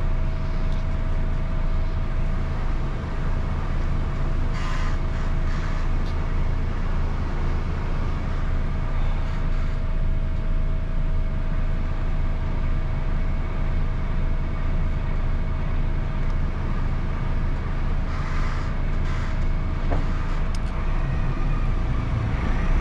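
Truck engine idling at a standstill, heard from inside the cab: a steady low hum with a thin steady tone over it, and a couple of brief noisier passes.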